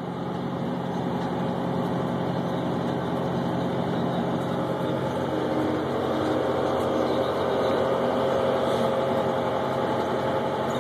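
John Deere 6420 tractor's diesel engine running steadily while it pulls a twin-rotor hay rake, heard from inside the cab as a constant low drone.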